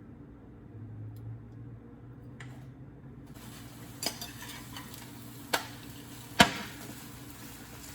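Food sizzling in a hot pan, the sizzle starting suddenly a little over three seconds in, with three sharp knocks of a cooking utensil on the pan, the last the loudest.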